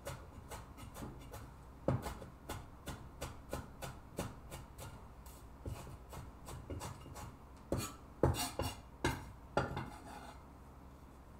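Cleaver chopping and scraping a pile of scallions, ginger and garlic on a wooden cutting board: a run of light, irregular knocks, with a few louder chops about eight seconds in.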